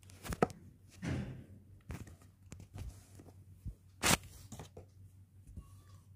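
Handling noise as plastic toy letters are pushed and shuffled by hand on a cloth bedsheet: scattered soft knocks and rustles, the loudest rustle about four seconds in.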